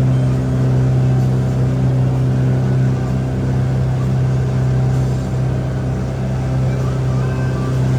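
Riverboat engine running at a steady speed, heard on board as a constant low hum.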